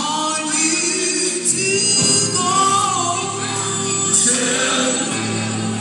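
Gospel song playing, with singing voices over a sustained bass line.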